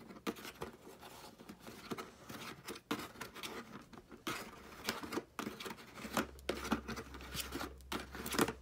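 Fingers twisting and prying small plastic toy pieces out of a slotted cardboard packaging insert: irregular scraping, scratching and small clicks of cardboard and plastic.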